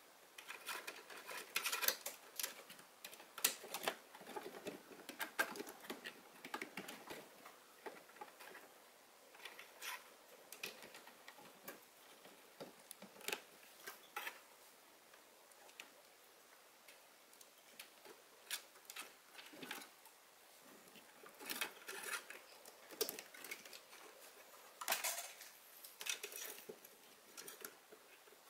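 Irregular small clicks and rustles of wiring and plastic connectors being handled and plugged onto an amplifier's front-panel circuit board, in bunches near the start and again toward the end.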